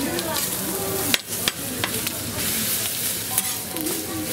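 Burger patties sizzling steadily on a hot griddle, with two sharp knocks a little after a second in.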